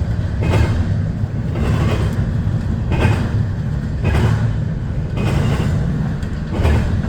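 CSX intermodal freight train passing at speed, its wheels clattering over the crossing in a regular beat about once a second over a steady rumble. Heavy wind buffets the microphone.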